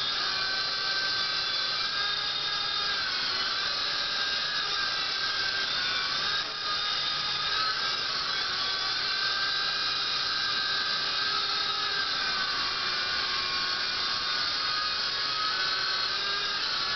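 Venom Ozone Elite toy RC helicopter in flight: a high, steady whine from its small electric motors and spinning rotors, the pitch dipping and rising a little as the throttle changes, with a short drop in loudness about six and a half seconds in.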